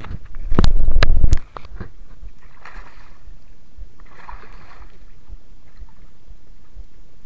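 A very loud knocking, rumbling burst lasting under a second near the start, then two soft splashes about a second and a half apart as a hooked fish is brought up beside a small wooden boat on a handline.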